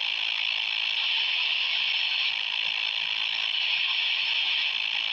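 Steady receiver static hissing from the speaker of a Quansheng UV-K6 handheld radio in upper-sideband mode as it is tuned up through the 10-meter band, with no signal coming through the noise.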